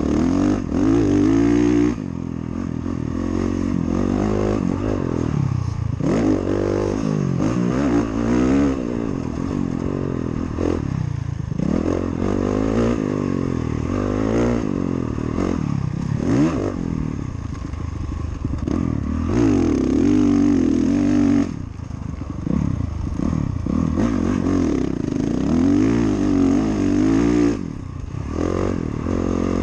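Motocross dirt bike engine heard from the rider's helmet, revving up and falling back again and again as it is ridden around a dirt track, with a few brief drops off the throttle.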